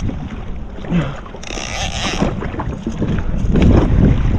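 Wind rumbling on the microphone and water splashing around a jet ski drifting at sea, with a brief splash about a second and a half in.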